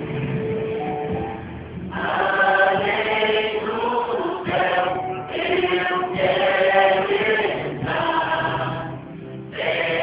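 Gospel music: a choir singing in phrases over instrumental backing, the voices coming in about two seconds in.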